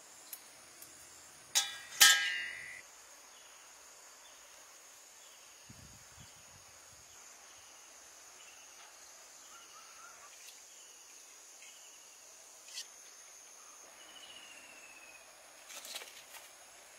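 Steady high drone of insects such as crickets or cicadas, with a sharp click and then a louder ringing clink about two seconds in, and a few small ticks of handling later on.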